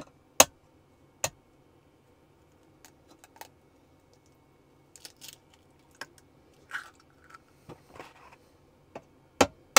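Eggs being cracked open over a glass measuring jug of milk: a few sharp taps of shell breaking, with small crackling sounds of the shells being pulled apart in between.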